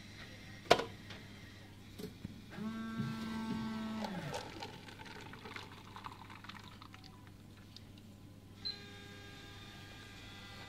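Coffee vending machine making an espresso: a sharp click, then a motor hum for under two seconds that winds down in pitch, followed by coffee running into the paper cup. Near the end another click and a steady hum as the cycle finishes.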